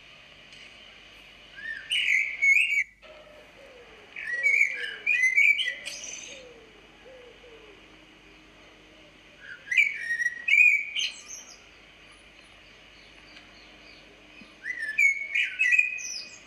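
Songbirds chirping in short bouts of quick rising and falling whistled notes, four bouts a few seconds apart, with a run of lower falling notes early on.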